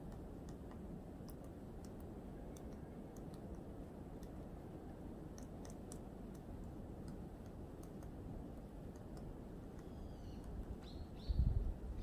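Faint, irregular taps of a woodpecker pecking at wood, over a low steady rumble of wind noise. A few short, high bird calls come near the end, followed by a sudden louder low rumble.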